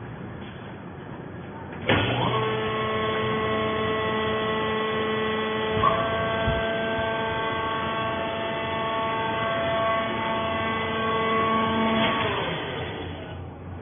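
Hydraulic fiber baler's power unit, electric motor and hydraulic pump, starting suddenly about two seconds in and running with a steady hum and whine of several fixed tones, then winding down near the end. A single knock about six seconds in.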